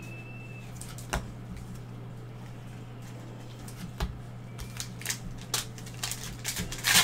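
Trading cards and card packs being handled by gloved hands: a single sharp click about a second in and another about four seconds in, then clicks and light rustling that come more often toward the end. A steady low hum runs underneath.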